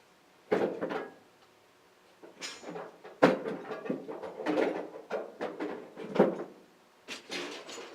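Pieces of scrap metal being thrown off a truck, landing with a series of clattering clanks about a second apart.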